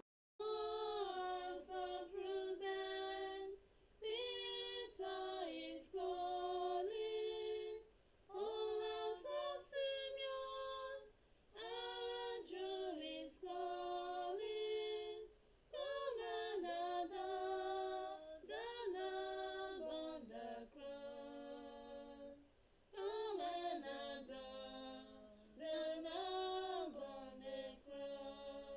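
A woman's solo voice singing unaccompanied: a slow melody in phrases of a few seconds, with short breaks for breath between them.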